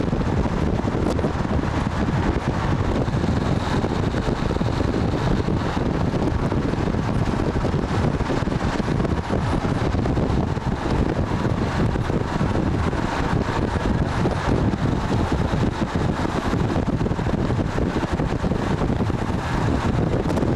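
Steady rush of wind on the microphone over the running noise of a moving vehicle.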